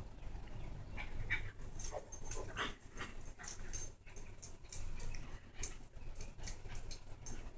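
Yorkshire terrier humping a blanket, whimpering and panting, with a quick run of light clicks from about a second and a half in.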